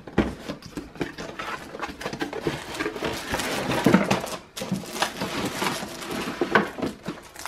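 Cardboard packaging being handled: a box flap opened and the plastic-wrapped contents inside rustled and shifted. It is a steady run of rustling and scraping with frequent small knocks.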